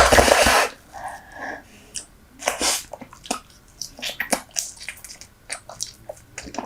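Close-miked chewing of Super Bubble bubble gum: wet smacks, squishes and clicks coming irregularly, with a loud burst of noise lasting under a second at the very start.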